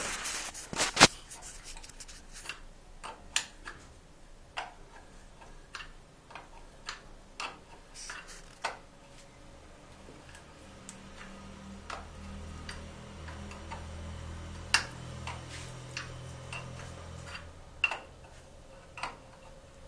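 Irregular sharp metal clicks and taps of a spanner on the nut of a braided flexible supply hose at a chrome angle stop valve, being tightened. A faint low hum runs for several seconds in the middle.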